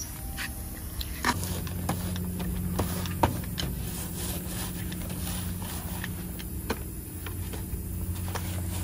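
A machine running with a steady low hum that starts about a second in, with scattered knocks and clicks over it.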